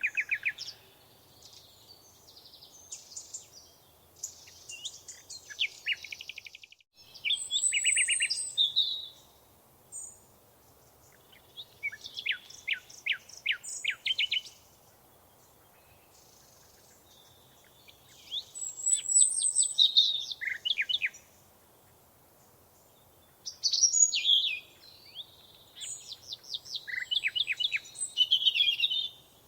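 Songbirds singing in repeated bouts of rapid, high chirps, each run lasting two or three seconds, with short pauses of quiet background between them.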